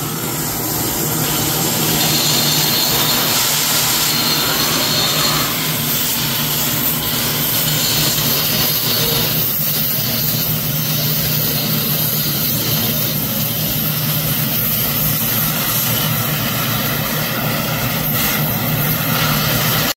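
Oxy-fuel cutting torch blowing a steady rushing hiss as it burns out a locomotive boiler rivet, gouging the metal around it to enlarge the hole so the rivet can be punched through.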